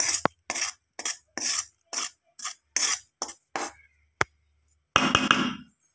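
Metal spoon scraping against the side and bottom of a metal bowl in short strokes, about two a second, while mixing thick idli batter with a fried tempering. There is a sharp tap partway through and one longer scrape near the end.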